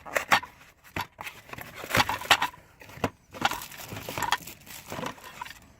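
Packaging being torn open by hand to unwrap a new brake light switch: irregular crinkling and crackling with sharp snaps, loudest about two seconds in.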